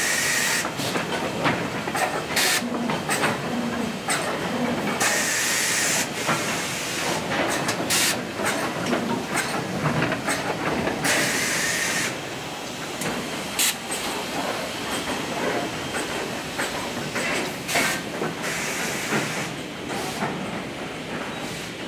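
Factory conveyor line with pneumatic cylinders: several bursts of compressed-air hiss and many sharp clacks as the actuators fire and wooden parts knock along the belt, over steady machine noise. The noise drops a little about halfway through.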